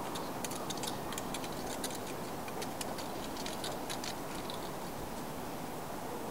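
Steady outdoor background hum with a run of quick, irregular high-pitched ticks that stop about four seconds in.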